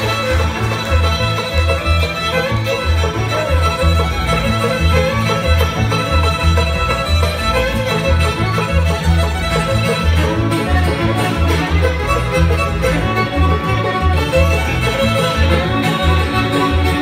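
Bluegrass band playing live without singing: fiddle and acoustic guitar over an electric bass that keeps a steady pulsing beat.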